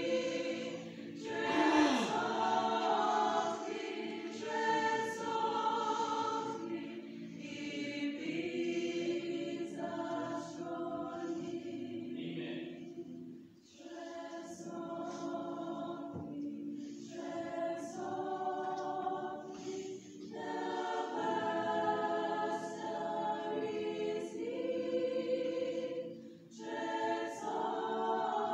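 Choir singing sustained phrases, each broken off by a short pause.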